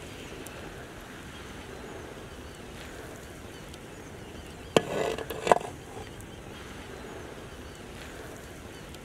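A large metal ladle scooping biryani from a big pot. About halfway in there is a sharp knock, a short scraping rustle of rice, and a second knock, over a steady faint outdoor background.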